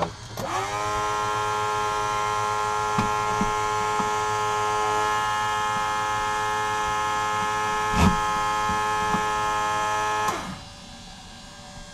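Cessna 172S auxiliary electric fuel pump running for engine priming: a steady electric hum that winds up in pitch as it is switched on about half a second in and stops abruptly near the end once priming is done. A single sharp click comes about eight seconds in.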